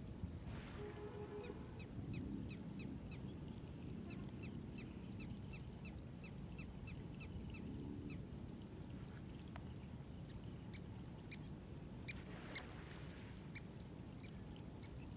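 Birds calling: a run of short, high chirps repeated about three times a second, then scattered chirps later on, over a low steady background hum of the outdoors.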